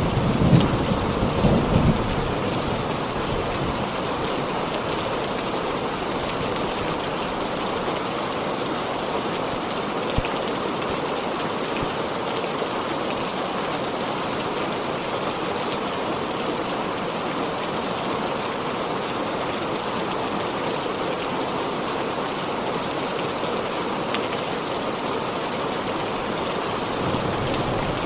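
Heavy rain pouring steadily, with a low rumble of thunder dying away in the first two seconds and building again near the end.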